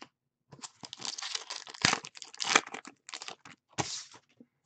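Hockey trading cards and foil pack wrappers handled on a desk: a run of irregular crinkling and scratchy rustles with sharper clicks, starting about half a second in.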